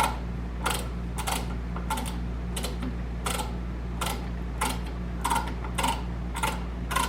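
A 1/4-20 tap being turned into a drilled hole in a drill press, cutting threads with irregular sharp clicks, about two to three a second, over a steady low hum.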